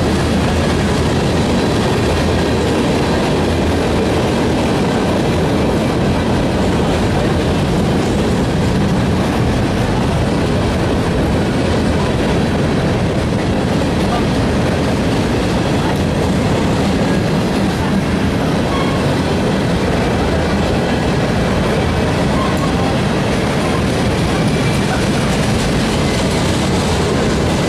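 A freight train's Norfolk Southern gondola cars rolling steadily past, with continuous steel wheel-on-rail noise.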